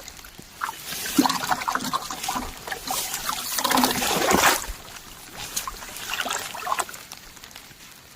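Water sloshing and splashing in a flooded rice paddy, in irregular bursts for the first four or five seconds, then settling to a quieter trickle.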